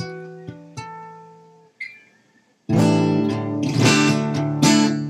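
Cutaway acoustic guitar: a few picked notes ring and fade away, a short pause, then strummed chords start again about two and a half seconds in, roughly one a second.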